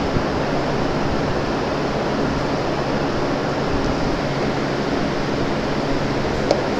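Steady, even rushing background noise with a faint low hum under it. Two small clicks, one just after the start and a sharper one near the end.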